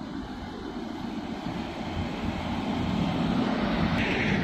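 Low, steady rumble of a very large LPG gas carrier (VLGC) passing close by, growing louder as the ship comes nearer. Near the end a hiss rises over it. Wind buffets the microphone.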